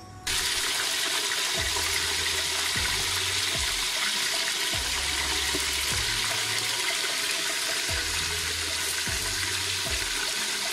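Pot of meat stock boiling hard on an induction hob: a loud, steady rushing hiss that starts suddenly just after the beginning. A low hum comes and goes underneath it.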